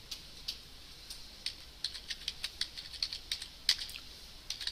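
Computer keyboard typing: a few scattered keystrokes, then a quick run of keystrokes from about two seconds in that stops just before four seconds.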